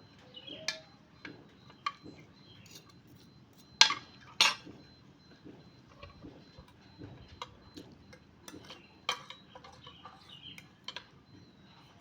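Eating utensils clinking against a dish while eating noodles: scattered light clicks, with two loud sharp clinks about four seconds in.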